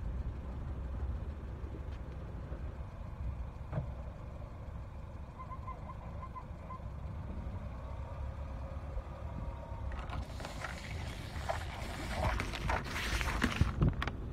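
A car's engine runs with a low rumble, then about ten seconds in a dense run of crackling and crunching as the tyre rolls over lidded plastic tubs of coloured liquid and crushes them, with a few sharp cracks near the end.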